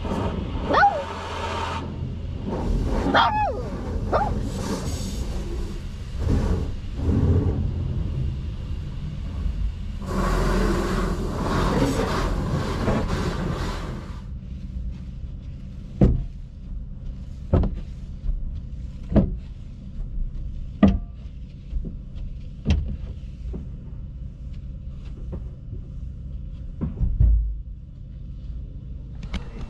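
Car wash running over a van, heard from inside the cab: clattering and a hissing rush of spray against the body and glass for the first half. Then a steady low machine hum with a sharp knock about every second and a half to two seconds.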